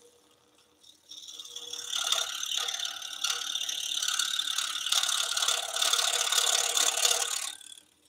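Axminster Trade scroll saw cutting thin hardwood: the fast, even buzz of the reciprocating blade working through the wood starts about a second in and stops shortly before the end. The saw's faint steady motor hum runs underneath.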